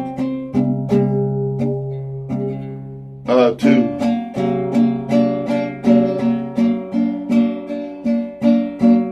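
Acoustic guitar played on its own: a chord left ringing and fading for the first three seconds, then strummed chords in a steady rhythm of about two strokes a second.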